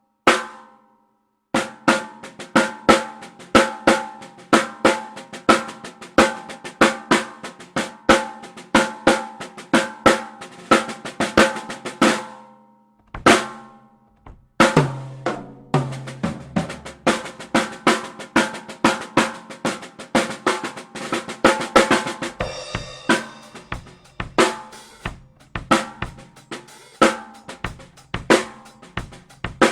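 Snare drum played close-miked through an AKG P3S dynamic microphone in quick runs of sharp strokes. One hit, a long run, a brief pause about 13 s in, then more playing with a lower drum ringing around 15 s in and a cymbal-like wash about 22 s in.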